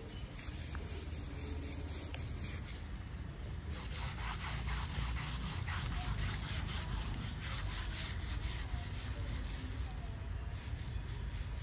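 An elephant's hide being scrubbed during its bath: rhythmic scrubbing strokes start about four seconds in and stop near the end, over a steady low rumble.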